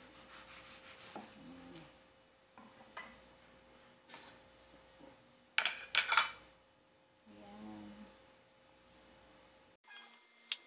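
Cleaver-style kitchen knife cutting a ripe mango on a wooden cutting board: soft scraping and light taps, with a sharp double knock about six seconds in as the pieces are handled against board and bowl. A steady electrical hum runs underneath.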